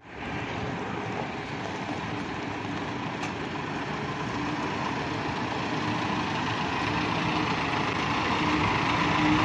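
Diesel engine of a Foton Auman GTL semi tractor running as the loaded truck pulls slowly out, a steady hum that grows gradually louder as it comes closer.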